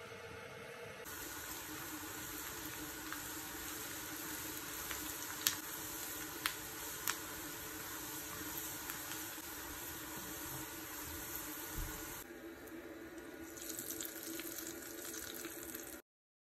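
Sliced onions frying in hot oil in a pan, a steady sizzle that grows about a second in, with a few sharp pops or clicks around the middle.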